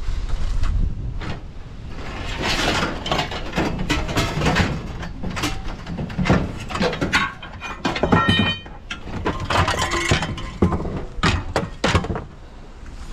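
Scrap metal being handled and loaded: a run of irregular metal clanks, knocks and scrapes, with one ringing metallic strike a little past the middle.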